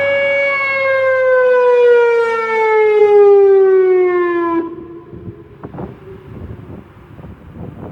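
Whelen WPS 2910 electronic outdoor warning siren holding a steady tone, then falling in pitch for about four seconds and cutting off abruptly, ending the test signal. Faint background rumble with soft low bumps follows.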